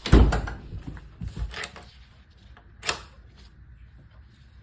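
A door pushed shut with a thump, then a few clicks and knocks of its latch hardware and one sharp click about three seconds in. The door closes without hitting, now that it has been moved out.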